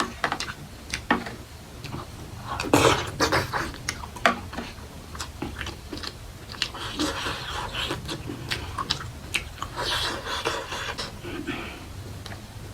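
Close-miked chewing of a mas ko bara (black-lentil fritter), with many wet mouth clicks and lip smacks and a few breaths.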